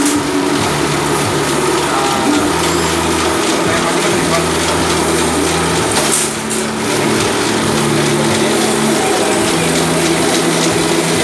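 Wire straightening machine running, a loud steady motor-driven hum that steps between a few held pitches every few seconds, with a brief dip about six seconds in.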